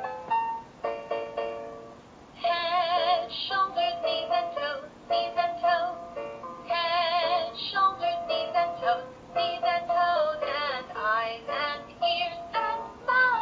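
A children's song playing from an electronic sound book's built-in speaker: a short keyboard-like melody, then a singing voice with wide vibrato joins about two seconds in and carries the tune.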